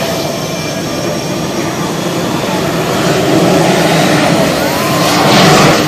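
F/A-18 Hornet jet engines running as the jets taxi: a steady jet noise with a faint high whine, growing louder from about halfway through and loudest near the end.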